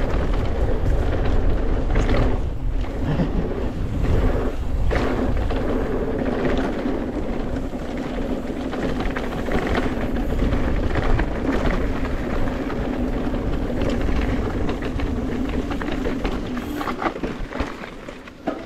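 Mountain bike being ridden on a trail: wind rumbling on the camera microphone, with the bike rattling and knocking over rough ground a few times. It gets quieter near the end.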